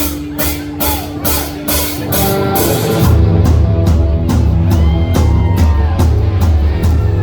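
Live hard rock band playing: drums keep a steady beat of about three hits a second under a held note, then the bass and full band come in louder about three seconds in.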